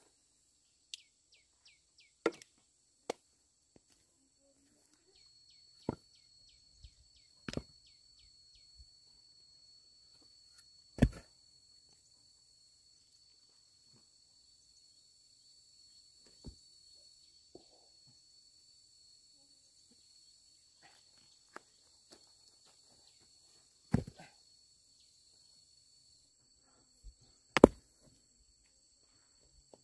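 Sharp single knocks at irregular intervals, a few seconds apart, the loudest about eleven seconds in and twice near the end, over a steady high-pitched insect drone.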